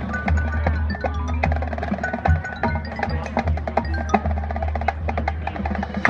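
Marching band playing a percussion-led passage: mallet keyboards and drums with many sharp, quick strikes and two stretches of rapidly repeated notes.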